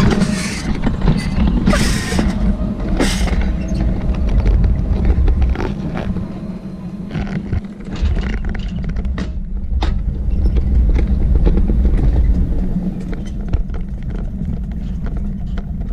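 Alpine coaster sled running down its steel rail track at speed: a steady low rumble with repeated sharp clacks, easing briefly about halfway through before picking up again.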